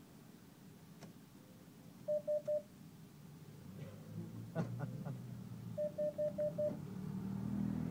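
Cash machine beeping: three short beeps, then a few sharp mechanical clicks, then five more beeps a little before the end, the prompts to take back the card and then the cash as it is dispensed.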